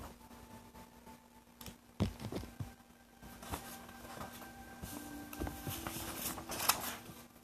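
A few soft knocks and clicks with some rustling, over faint steady tones. Another tone joins about five seconds in.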